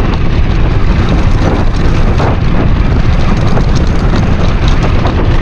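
Off-road motorcycle running, with a steady loud rumble of wind buffeting the camera microphone.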